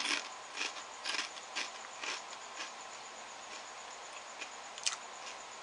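Faint short clicks, about two a second and fading, over a steady background hiss, with one sharper click near the end.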